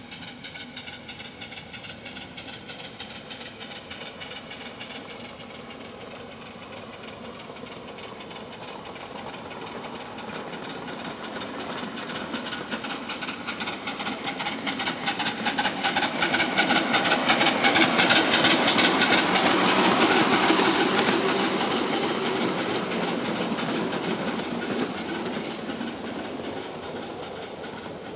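Ride-on live steam locomotive running past, its exhaust chuffing in a rapid, even beat, growing louder as it nears, loudest a little past the middle, then fading away.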